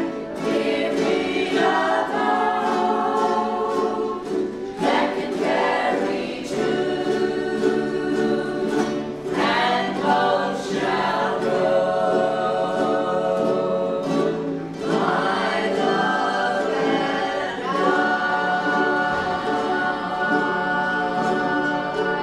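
A group of about twenty singing a song together in unison while strumming ukuleles.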